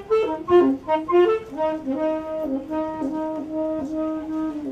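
Solo wind instrument playing a jazzy melody: a quick run of short notes, then one long held note that lasts to the end.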